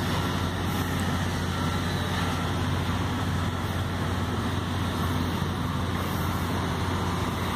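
Steady low mechanical hum with a rushing hiss over it, unchanging throughout, like a running engine or heavy machinery.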